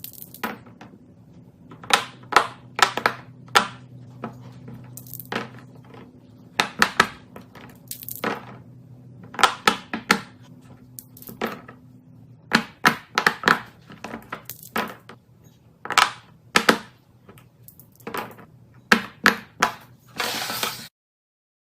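Hard plastic fidget toys handled by hand, giving many short, sharp, irregular clicks and taps. A faint steady low hum runs under them until about halfway through. A brief noisy rush comes just before the sound cuts off near the end.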